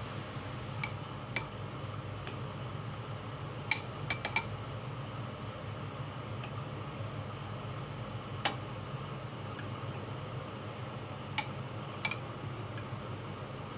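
Kitchenware clinking now and then, a dozen or so sharp, briefly ringing clinks of glass or ceramic dishes and utensils being set down and handled. A steady low hum runs underneath.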